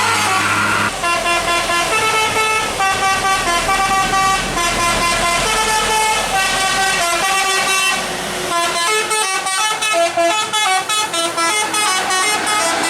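Bus telolet horn, a set of electric trumpet horns, playing a quick melody of stepped notes. The notes change several times a second and come faster in the second half.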